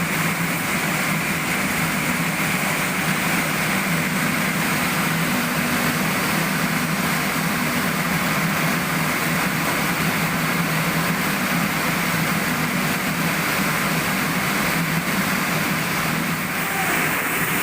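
Steady mechanical noise of machinery or an engine running, holding an even level throughout.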